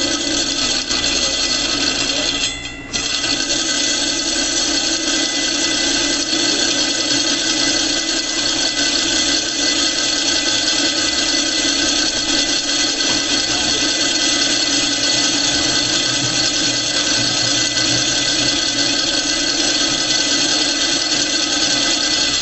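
Gural cheese slicer's spinning blade being ground by its sharpening stones: a steady, high-pitched ringing screech, broken once briefly about two and a half seconds in.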